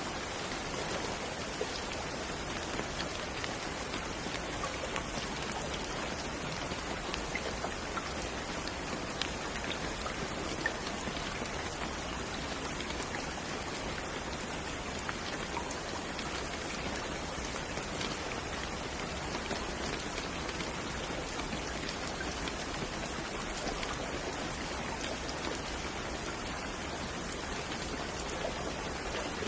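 Steady rain falling on a surface, a dense even patter with many small individual drops ticking through it.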